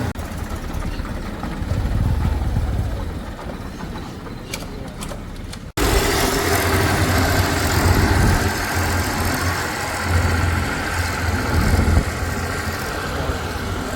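Heavy diesel machinery running with a steady low engine rumble; the sound breaks off for an instant about six seconds in, then carries on louder.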